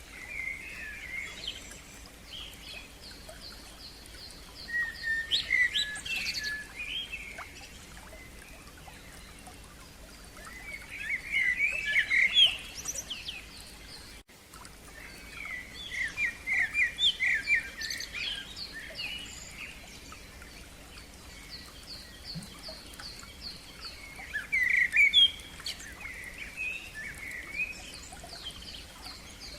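Songbirds singing: varied chirping phrases come every few seconds, and one bird repeats a high thin note several times a second for a few seconds at a time.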